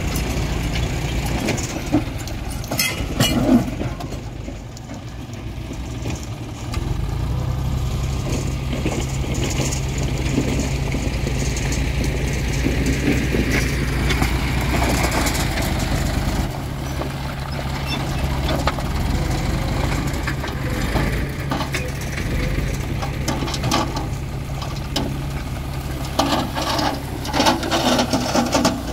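John Deere tractor's diesel engine running steadily. In the last few seconds, a clatter of soil and stones sliding out of the raised tipping trolley.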